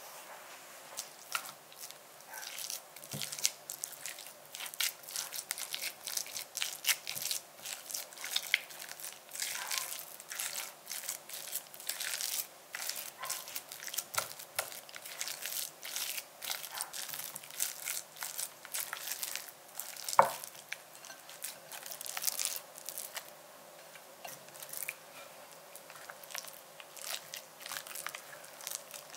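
Silicone spatula mashing baked sweet potato against a glass bowl and folding it into cream cheese: a steady run of short, irregular scrapes and soft crackles, with one sharper tap about twenty seconds in.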